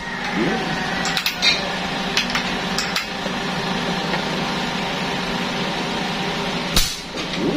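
Silenced airgun fired once, about seven seconds in: a single short, sharp report that is very quiet for a shot, after a few small clicks of handling. A steady hum runs underneath.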